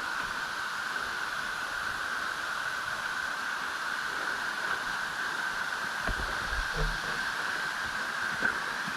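Steady rushing noise of a waterfall, with a few faint low bumps about six to seven seconds in.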